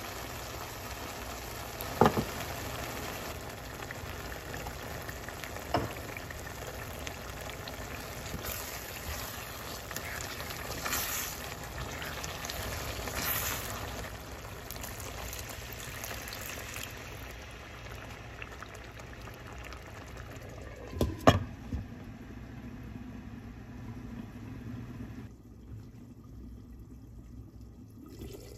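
Eddoes simmering in tomato masala in a stainless-steel pan, a steady sizzling and bubbling hiss. A few sharp knocks on the pan cut through it, the loudest a quick cluster about two-thirds of the way in, and the hiss turns duller near the end.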